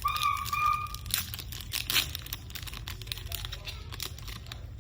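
A foil trading-card pack being torn open and crinkled in the hands: a run of irregular crackling and tearing, strongest about one to two seconds in. It starts just as a short, high sung note ends.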